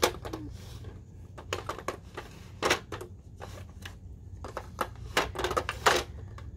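A dog working the pieces of a dog puzzle box, making a series of irregular clicks and knocks as the turning and lifting pieces are pushed and moved.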